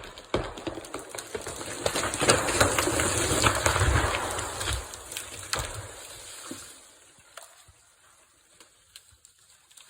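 A big white pine falling after the felling cut: wood cracking and branches crashing and snapping, loudest with a heavy low thud about four seconds in, then dying away.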